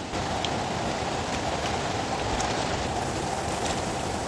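Steady rushing of a fast river running over rocks, high after rain.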